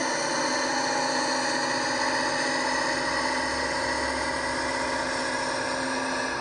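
Sound-fitted OO gauge Class 55 Deltic model's small onboard speaker playing the recorded Deltic diesel engine sound as the locomotive pulls away, a steady engine drone. The speaker rattles as it vibrates on the circuit board, which the owner blames on the speaker itself.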